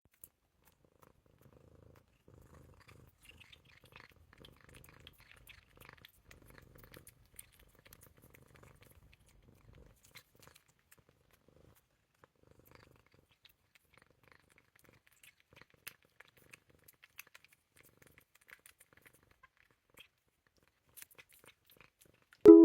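A domestic cat purring faintly, stopping about ten seconds in; after that only faint scattered ticks.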